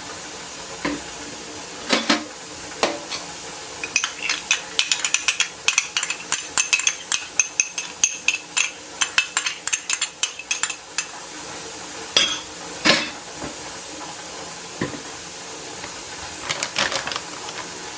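A metal utensil clinking and scraping against a dish in a quick run of ringing taps for several seconds, then a few louder knocks near the end.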